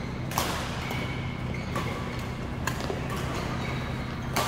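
Badminton rackets striking a shuttlecock in a rally: four sharp hits, irregularly spaced about a second apart, echoing in a large hall, with short shoe squeaks on the court floor between them.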